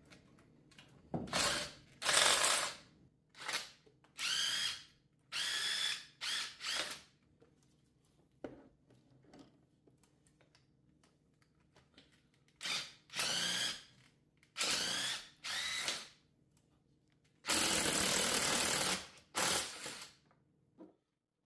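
Cordless electric ratchet running out the valve cover bolts in about a dozen short whirring bursts, each rising in pitch as the motor spins up, the longest near the end.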